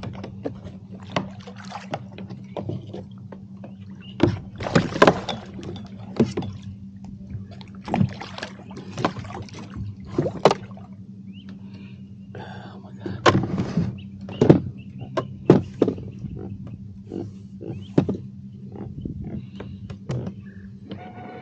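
Irregular knocks and clatter of gear and handling on a plastic fishing kayak, with the loudest flurries about a quarter, half and two-thirds of the way through, over a steady low hum.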